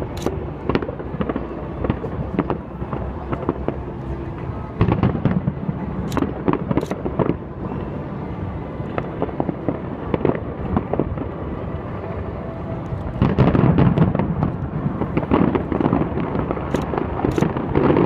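Aerial fireworks going off: a dense run of pops and bangs from bursting shells, with louder volleys about five seconds in and again near the end.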